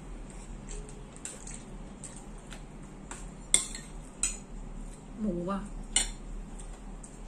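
Spoons and forks clinking and scraping against a metal bowl and plates while eating: a handful of sharp clinks spread out, the loudest about three and a half seconds in.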